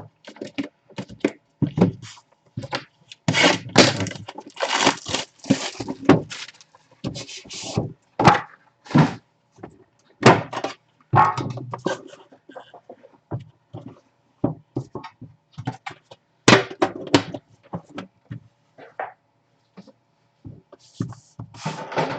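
A trading-card box being handled and opened: irregular thunks and knocks of cardboard set down and shifted, with stretches of rustling and tearing packaging.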